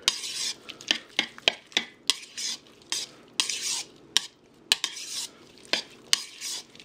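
Metal spoon stirring a wet mix of diced tomatoes, olives, red onion and lime juice in a plastic mixing bowl: repeated swishes, about one or two a second, with sharp clicks as the spoon hits the bowl.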